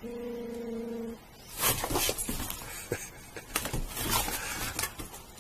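A sheepdog puppy growling: one steady held note for about a second, then a longer stretch of rougher, noisier snarling and scuffling, typical of a food-aggressive puppy going after its food.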